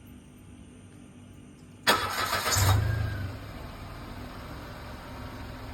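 A 2014 Mitsubishi Mirage's three-cylinder engine is started from cold. About two seconds in, the starter cranks briefly, and the engine catches with a short flare of revs before settling to idle. The strange start-up noise that low oil had caused is no longer heard after the oil top-up.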